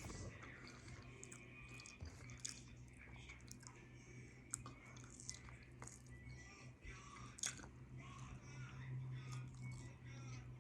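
A person chewing food close to the microphone: many small wet mouth clicks and smacks, over a faint steady low hum.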